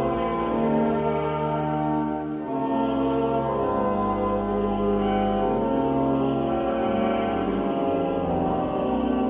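Church organ playing a hymn in slow, held chords over a low pedal bass, with a brief dip and change of chord about two and a half seconds in.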